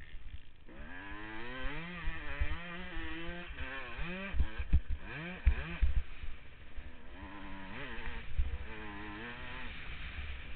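Suzuki RM250 two-stroke single-cylinder motocross engine under hard throttle, its pitch climbing as it revs up through the gears, dropping sharply as the throttle is chopped a few times in the middle, then climbing again. Heavy low thumps of wind buffeting on the helmet-mounted microphone run under it.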